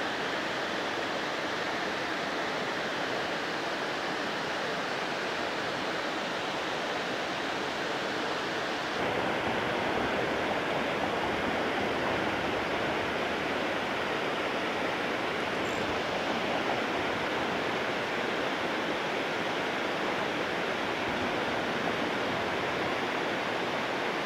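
Steady rush of water pouring over a dam spillway, an even wash of noise that grows a little louder and fuller about nine seconds in.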